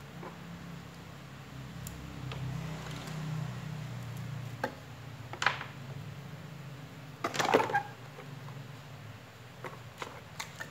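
Handling noises of a small plastic power adapter and its cable on a wooden desk: scattered clicks and knocks, with the loudest clatter about two thirds of the way through and a few light ticks near the end. A low hum sits underneath in the first half.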